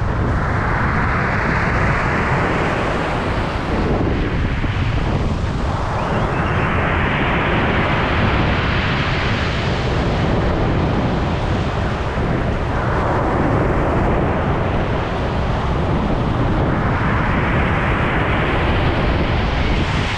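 Waves breaking on a pebble beach, surging three times and washing back over the shingle. A steady low rumble of wind on the microphone runs underneath.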